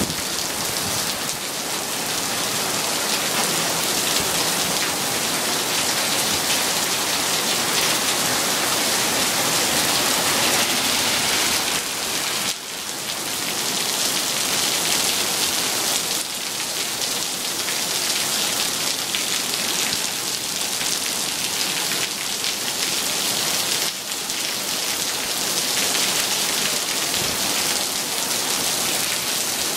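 Heavy rain falling steadily on pavement and lawn, a dense, even hiss.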